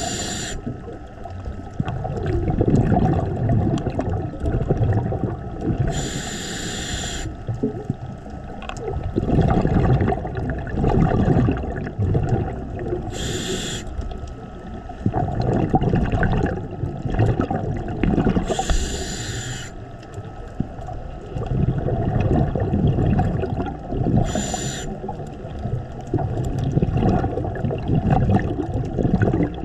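Scuba diver breathing through a regulator: a hiss of about a second on each inhalation, repeating every five to six seconds, with rumbling bursts of exhaled bubbles in between.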